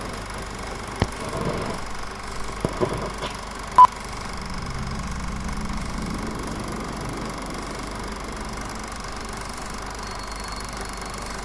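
Old film projector running: a steady mechanical whir with a low rattle, with scattered clicks and pops of film crackle. One short, loud beep sounds about four seconds in.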